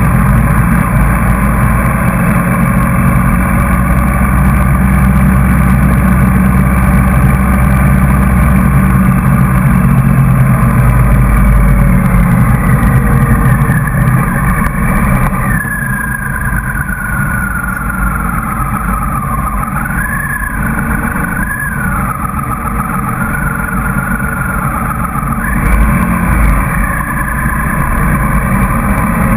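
Motorcycle engine running steadily on the move, mixed with the engines of a pack of other motorcycles. The engine note falls slowly through the middle and rises again about three-quarters of the way through.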